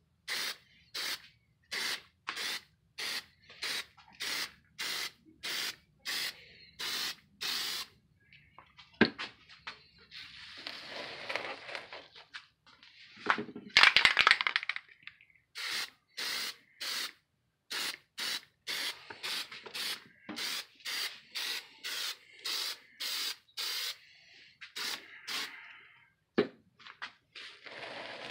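Aerosol can of white Plasti Dip sprayed in short taps of the nozzle, about two hisses a second. A longer, louder hiss comes in the middle before the rapid short bursts resume. The short taps put down a speckled, pebbled coat rather than a wet one.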